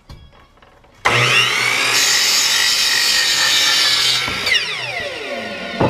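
Electric miter saw (chop saw) starting up about a second in and cutting through a wooden board, loud and steady for about three seconds. The blade then spins down, its pitch falling away near the end.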